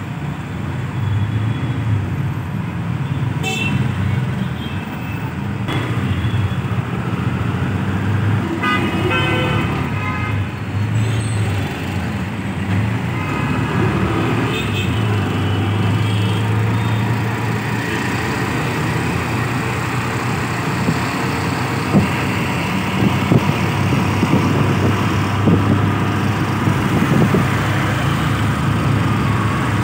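Busy city road traffic heard from a moving vehicle: a steady low engine and road drone with vehicle horns honking now and then, most clearly about nine to eleven seconds in.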